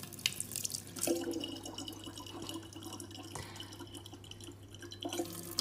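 Thin stream of tap water trickling and dripping into a large plastic water jug, faint, with a few small splashy ticks.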